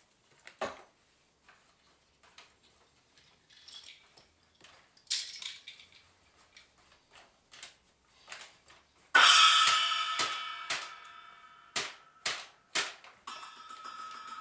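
Sparse contemporary percussion on small hand-held objects: scattered clicks and light rustles, and a short shaken rattle about five seconds in. About nine seconds in comes a loud ringing metal strike that slowly fades, then three sharp clicks, and a second ringing metal tone starts near the end.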